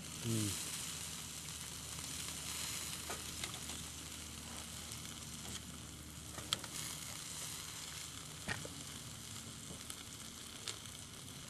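Thick rib steak sizzling on a hot steel grill plate over wood coals as it is cut, a steady hiss with a couple of sharp clicks of the knife. A brief low hum-like sound comes right at the start.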